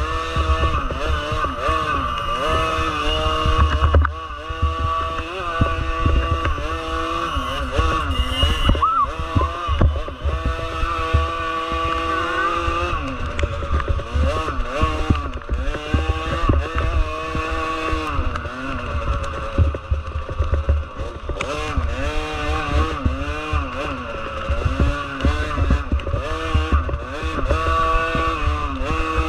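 Small motorcycle engines running hard, their pitch rising and falling every second or two as they rev and ease off, over a heavy low rumble.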